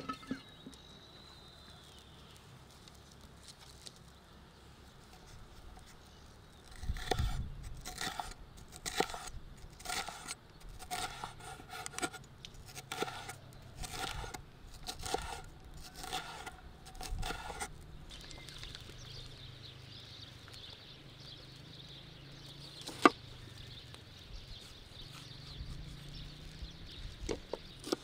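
Chef's knife slicing a bell pepper into strips on a wooden cutting board: a steady run of knife strokes knocking on the board for about ten seconds, then a single sharp knock about two-thirds of the way in.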